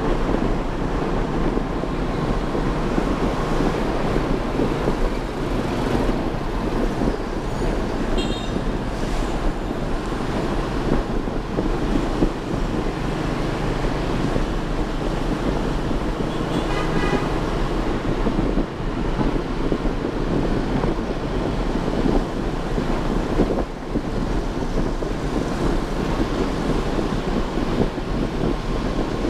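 Wind buffeting a camera microphone on a moving motorbike, over the motorbike's engine running steadily and the surrounding street traffic. Two short horn beeps cut through, one about a quarter of the way in and another just past the middle.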